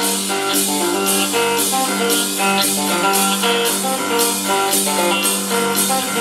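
Live blues band playing an instrumental break: a box-bodied electric guitar, a cigar box guitar, plays a lead over bass and a steady drum beat of about two hits a second.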